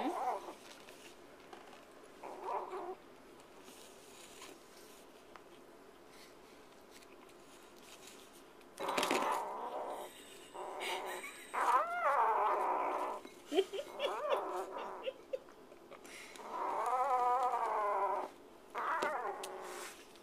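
Kitten growling in repeated wavering bursts, the longest near the end: a food-guarding growl at a gloved hand reaching into its food bowl.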